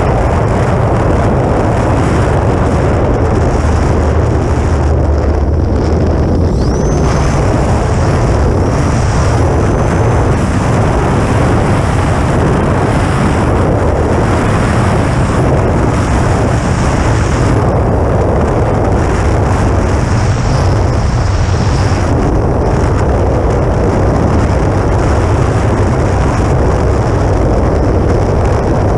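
Steady, loud wind rush and low buffeting on a GoPro mounted on the wingtip of a flying E-flite Air Tractor RC plane. A faint high whine comes and goes over the rush.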